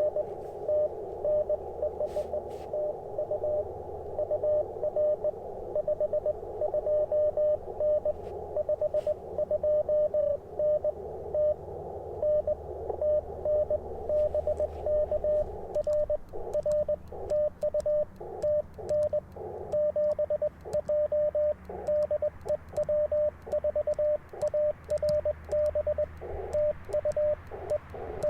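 Morse code on an Icom IC-705 amateur transceiver: a single steady tone keyed on and off as dots and dashes. In the first half, a station is heard through the narrow CW filter over a band of receiver hiss. From about halfway on, the hiss drops out between elements as the operator sends, so the tone is the transmit sidetone, with faint clicks from the paddle key.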